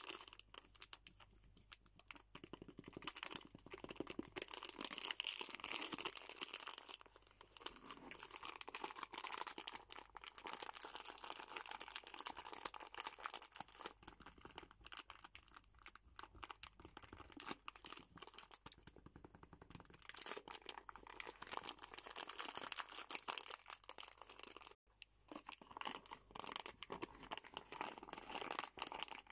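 Fingers crinkling and scratching a crackly plastic Choco Pie snack wrapper, a dense run of fine crackles. After a brief break near the end, a soft plastic pack of wet wipes is crinkled in the hands.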